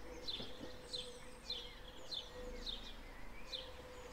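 A small songbird chirping over and over, each chirp a short falling note, about two a second, over a faint steady hum.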